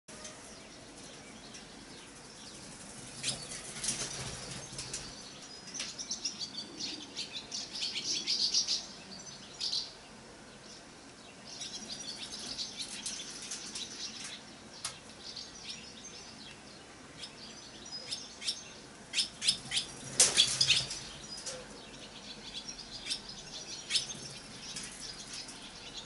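Barn swallow twittering in three bursts of quick high chirps and warbles, with a few wing flutters; the loudest flurry comes about two-thirds of the way through.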